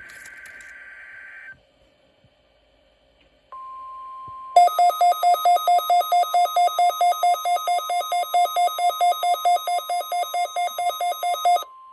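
The tail of a SAME digital header burst (warbling data tones), a short pause, then the NOAA Weather Radio 1050 Hz warning alarm tone starting about three and a half seconds in. About a second later the Midland WR120 receiver's own alert sounds over it as loud, rapid pulsing beeps, about four a second, which stop shortly before the end while the steady alarm tone carries on.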